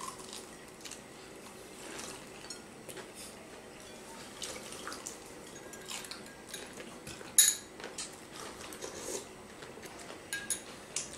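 Eating sounds at a dinner table: spoons clinking on soup bowls and plates, and soup being sipped. A sharper clink of tableware stands out about seven seconds in.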